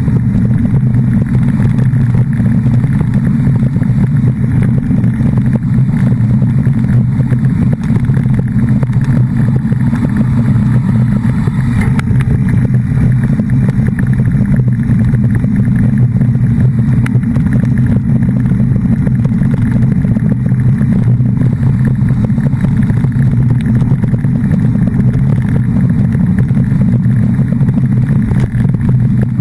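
An engine running steadily at a constant speed: a loud, unchanging low drone.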